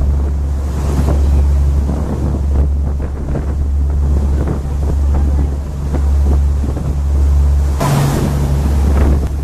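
Sightseeing boat's engine running with a low, steady drone, water rushing past the hull, and wind buffeting the microphone, with a strong gust near the end.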